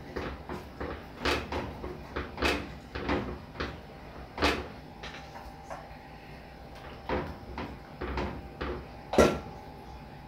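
Metal cookware knocking and clinking as whole snappers are laid into an aluminium pot of broth: about a dozen light, irregular knocks, some with a short ring, the loudest about nine seconds in.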